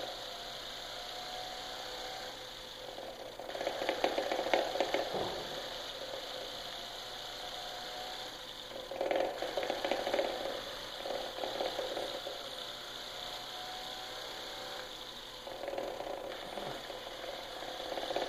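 3 lb melty-brain combat robot spinning on the floor on its own, a steady whir with louder, rougher stretches every few seconds as its spin speed sags and then picks up again. It is running away uncommanded and does not respond to the transmitter or the throttle cut.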